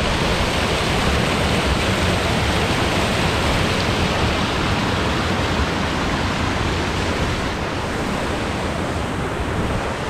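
Shallow, rocky mountain river rushing over boulders in small white-water cascades: a steady, even rush of water.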